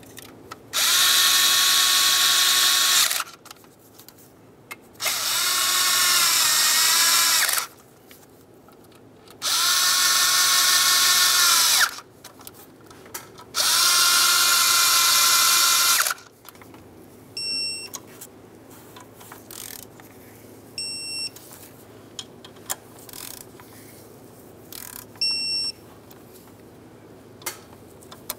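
A power socket driver with a 7mm socket spins the four ignition coil pack mounting bolts down in four whirring runs of about two and a half seconds each. Then an electronic torque wrench beeps briefly four times as each bolt is brought to its 53 inch-pound torque.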